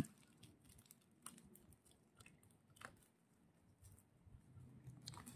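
Faint, scattered clicks and crinkles of fingers and fingernails picking at the plastic shrink wrap on a hardback book, trying to open it.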